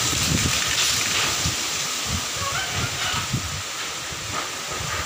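Dust-storm wind rushing through trees, with irregular gusts buffeting the phone's microphone in low rumbles that ease off near the end.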